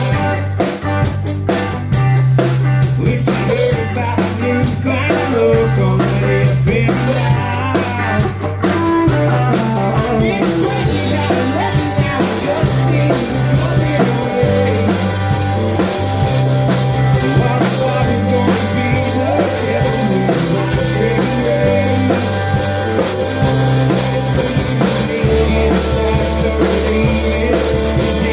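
A rock band playing live in a rehearsal room, with drum kit, electric guitar and a man singing. About ten seconds in, the drums open up into a steady wash of cymbals.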